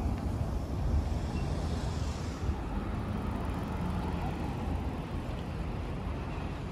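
City street traffic: a steady low rumble of cars on the road, with a high hiss that fades out about two and a half seconds in.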